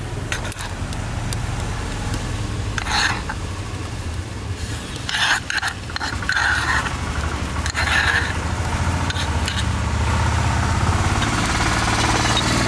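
A metal spoon scraping thick paste out of a clay bowl in several short strokes, over a steady low hum.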